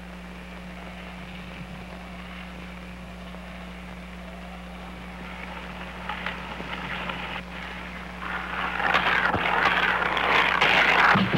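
Steady low hum and hiss of an old film soundtrack, then from about six seconds in a rushing noise that swells much louder near the end: skateboard wheels rolling fast over asphalt.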